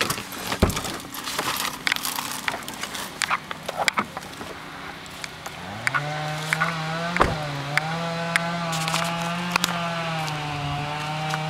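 Footsteps crunching and snapping over broken branches and storm debris. About halfway through, a chainsaw revs up and then keeps running steadily at high speed, its pitch wavering slightly.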